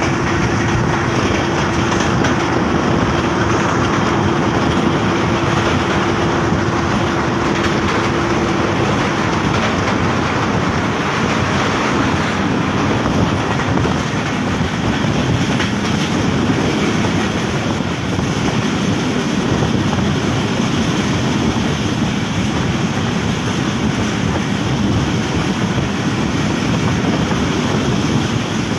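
Commuter train on the move, its steady running noise filling the air. A steady hum runs alongside and stops about a third of the way through.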